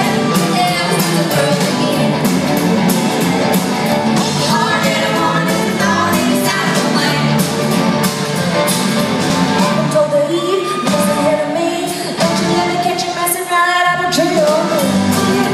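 A song with a singing voice over band accompaniment and a steady beat.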